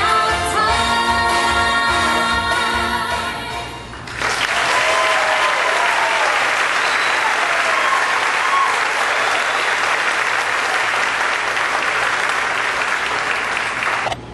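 A song with singing plays and fades out about four seconds in, then an audience applauds steadily, with a few cheers early in the applause.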